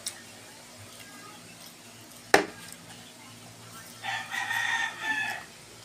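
A single sharp click about two and a half seconds in, then a rooster crows once for about a second and a half near the end.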